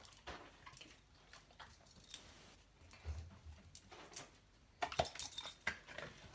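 A dog loading laundry into a washing machine: scattered light knocks and metallic clinks, with a low thud about three seconds in and a burst of clicks and jingling about five seconds in.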